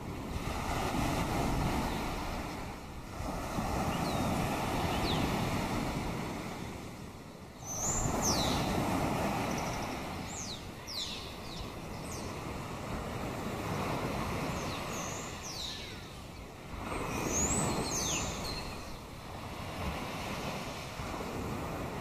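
Gentle waves washing against a rocky shore, swelling and ebbing every few seconds. Birds give short, high-pitched calls several times, in groups about 4, 8–11 and 15–18 seconds in.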